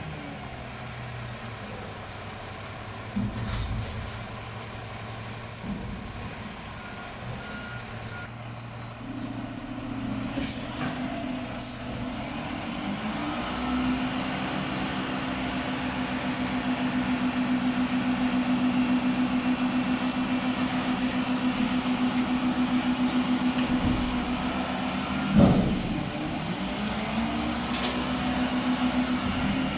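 Mack front-loading garbage truck's diesel engine running low, then held at a higher, steady speed from about nine seconds in while the front arms work the dumpster. Near the end comes one short, loud burst of air, typical of the truck's air brakes.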